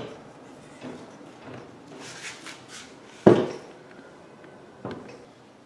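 Hinged wooden parts of a 1926 Singer sewing-machine cabinet being handled: soft rubbing and light knocks, with one sharp wooden knock about three seconds in and a lighter one near five seconds.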